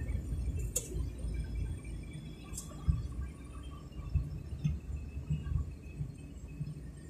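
Low rumble of a moving vehicle's engine and road noise heard from inside the cabin, with several dull thumps and a couple of faint high clicks.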